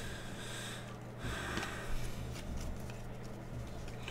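Faint rustle and slide of glossy trading cards being thumbed through by hand, with a short soft swish a little after a second in, over a steady low electrical hum.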